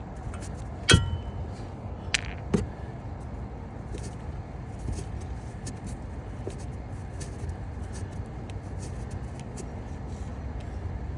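Metal hand tools clanking on steel: one sharp clank with a short metallic ring about a second in, then two lighter knocks a second or so later, over a steady low rumble.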